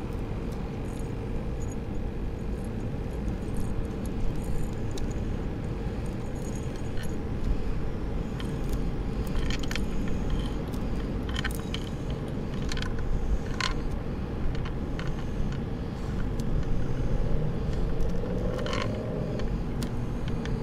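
Metal fishing pliers clicking and clinking against a hook while it is worked out of a fish's mouth: scattered sharp ticks, more of them in the middle, over a steady background rumble and a faint steady hum.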